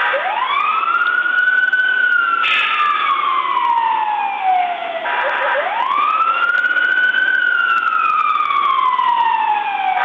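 Police car siren on wail. Each cycle rises quickly over about a second, then falls slowly for about four seconds, twice, with a third rise starting near the end.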